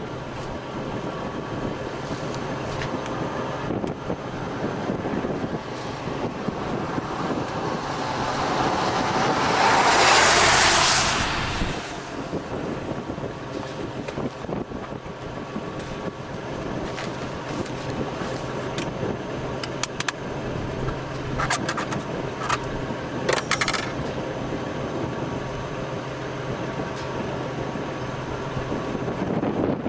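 Steady vehicle and road noise with a low engine hum. A loud rush of noise swells up about eight seconds in, peaks, and dies away a second or two later, like a vehicle passing close by.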